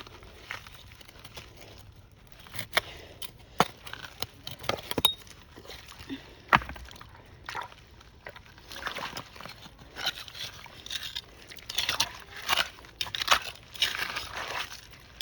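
Rocks knocking and crunching and water sloshing as stones are shifted in a shallow stream. Sharp single knocks come every second or so at first, then a busier run of crunching and splashing from about halfway.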